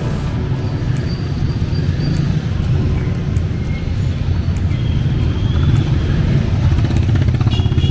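Street traffic: motor vehicle engines running close by, a steady low rumble.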